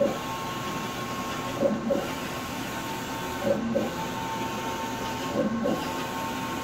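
Wide-format inkjet printer running, its print-head carriage sweeping back and forth across the paper. Each pass brings a steady motor whine, and each turnaround a pair of knocks, about every two seconds.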